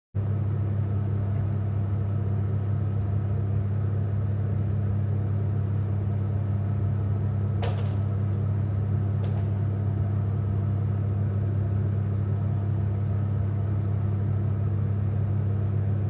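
A steady low electrical hum, like a running kitchen appliance, with two faint clicks about halfway through.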